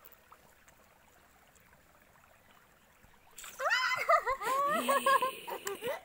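After a quiet start, a toddler squeals and laughs from a little over three seconds in, with water splashing under bare feet.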